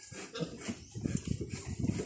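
Newborn piglet grunting while held in the hand, short low grunts coming thick and fast from about halfway in.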